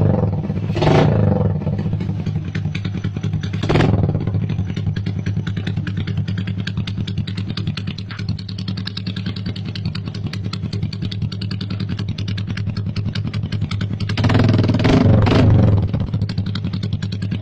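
Suzuki Smash 115 single-cylinder four-stroke motorcycle engine idling through an open aftermarket exhaust. The throttle is blipped right at the start, again about a second in and near four seconds, then held in a longer rev about fourteen seconds in before it settles back to idle.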